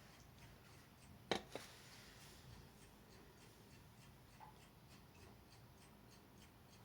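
Near silence: room tone, broken by one sharp click about a second in and a fainter second click just after it.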